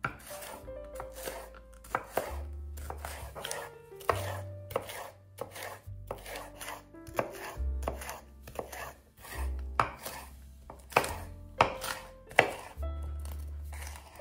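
Santoku knife dicing crisp bell peppers on a wooden cutting board: an uneven series of sharp chops as the blade cuts through onto the board, the loudest few near the end.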